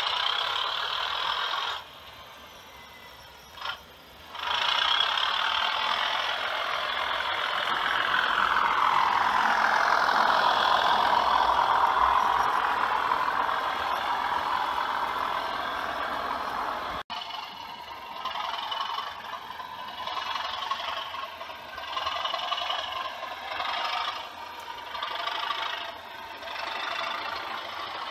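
Sound decoder in an OO gauge model diesel locomotive playing a British diesel engine working under load through its small speaker, mixed with the rumble of model wagon wheels on the track. It grows louder as the train approaches and is loudest about ten to twelve seconds in. After a sudden break about 17 seconds in, the engine sound goes on, rising and falling in pulses.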